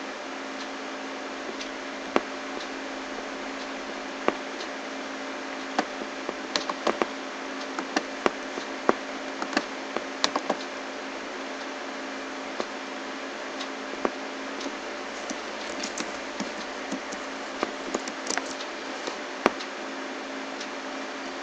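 Scattered sharp clicks of a computer mouse and keyboard keys, single or in quick little runs, over a steady hiss and faint hum from the recording.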